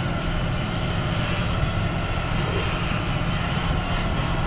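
Steady, loud drone of a running machine, unchanging throughout.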